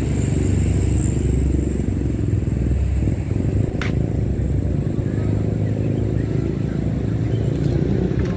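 Road traffic: vehicle engines running past, rising and falling in pitch over a steady low rumble, with one sharp click about four seconds in.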